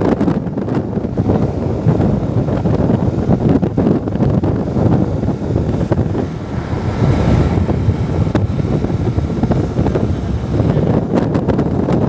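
Wind buffeting the microphone: a heavy low rumble that rises and falls in uneven gusts.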